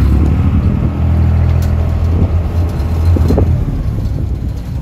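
A fishing boat's engine running with a steady low hum, strongest for the first three seconds or so and easing off near the end, with a couple of brief knocks partway through.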